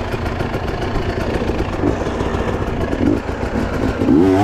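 Enduro motorcycle engine running steadily near idle, its revs rising near the end.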